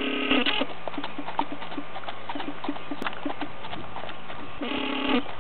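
Hoofbeats of a two-year-old Tennessee Walking Horse gelding under saddle on a dirt and gravel track, a steady run of clip-clops. A short held pitched sound cuts across them at the start and again near the end.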